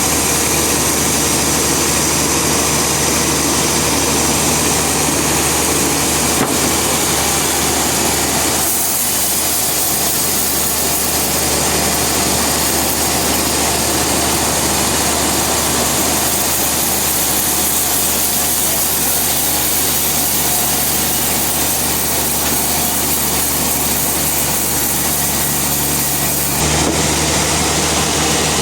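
Band sawmill running steadily, its engine and blade sawing timber. The sound changes abruptly about nine seconds in and again near the end.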